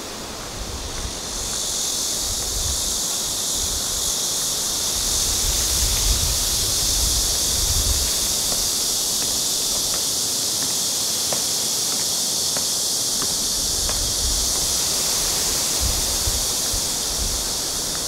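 Dense insect chorus: a steady, high shrill hiss that swells in about a second in and then holds, with irregular low thumps underneath.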